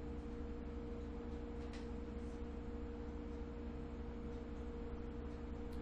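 Steady background hum made of a few faint, unchanging tones over a low drone, with one faint click about two seconds in.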